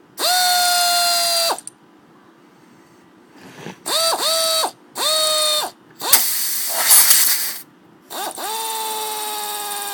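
Air ratchet spinning freely in bursts on compressed air taken from a tire: a whine over an air hiss, with five trigger pulls. The last run is long, and its whine slowly sinks in pitch.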